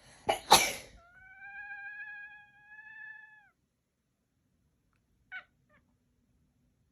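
A cat sneezing twice in quick succession, the second sneeze louder, followed by a long, steady meow of about two and a half seconds that drops in pitch as it ends. A short, faint chirp comes about five seconds in.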